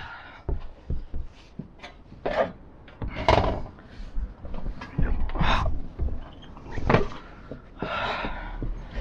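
Irregular knocks, thuds and rustling handling noises, a dozen or so sharp knocks with scraping between them, sounding like a small enclosed space.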